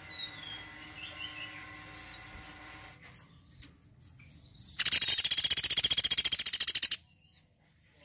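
Woodpecker giving a loud, fast, high-pitched rattling trill of about ten notes a second that lasts about two seconds and stops abruptly. Faint chirps of other birds come before it.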